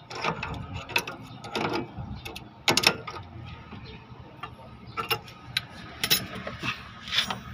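Wrench working the nut on a tie rod end's ball stud: short metallic clicks and knocks at uneven intervals, loudest about three seconds in.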